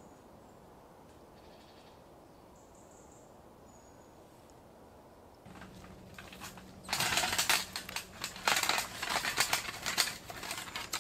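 Faint quiet background, then from about seven seconds in a metal wood-stove chimney pipe rattling and clanking in quick, loud clusters as it is pulled up out of the tent's roof.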